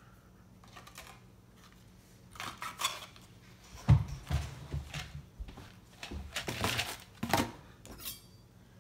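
Things being handled and packed away: an irregular clatter of clicks, knocks and rustling, with a dull thump about four seconds in as the loudest sound.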